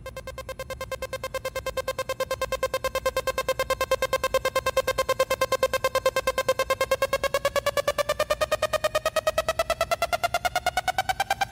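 Electronic background music: a single fast-pulsing synthesizer note that fades in over the first few seconds and starts to rise in pitch near the end, like a build-up.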